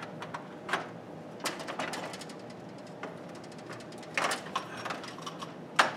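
Scattered clicks and light metallic knocks of hands and a small tool working inside a household breaker panel, with short clusters of rattling clicks about a second and a half in and again about four seconds in.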